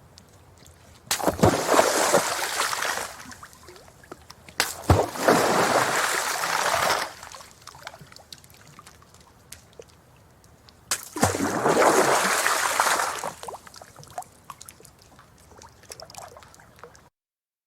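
Three rocks thrown into water, about a second in, near five seconds and near eleven seconds. Each lands with a sharp plunk followed by about two seconds of splashing that dies away, with faint sloshing between them. The sound cuts off suddenly near the end.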